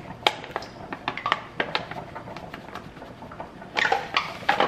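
Paper flour bag crinkling and rustling in the hands as flour is poured out of it, with a run of louder crinkling near the end as the bag is handled.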